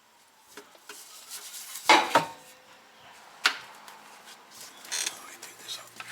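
Metal clanks and knocks from hand tools and drivetrain parts being handled while the cardan shaft is removed. The loudest is a double clank about two seconds in, then a sharp knock about a second and a half later, with lighter clicks in between.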